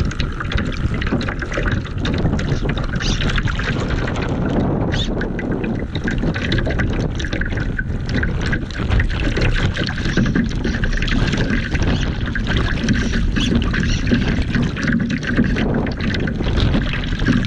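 Water rushing and slapping irregularly against the hull of a radio-controlled Laser model yacht sailing through choppy water, with wind buffeting a microphone on its deck.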